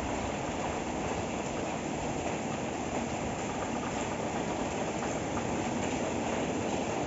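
Steady rain falling on sheet-metal roofs, an even, unbroken hiss that neither rises nor falls.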